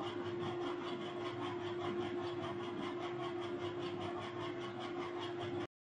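Steady machine hum with one constant tone and hiss, pulsing faintly about five times a second, cutting off suddenly near the end.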